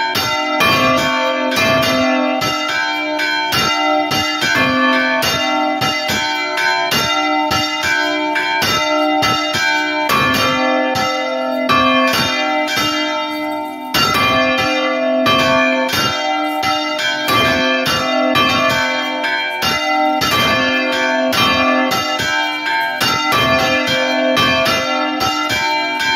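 Church bells ringing close up in a bell tower: a bronze bell on an iron yoke is swung right over by rope, its clapper striking again and again, several strikes a second, with the overlapping tones ringing on between them. The ringing thins briefly about halfway through, then comes back at full strength.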